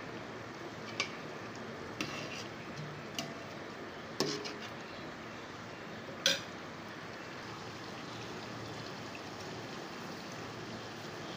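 About five sharp clinks of a metal spoon against a steel cooking pot in the first six seconds. Under them runs a steady low hiss from the pot of chicken and potato gravy cooking.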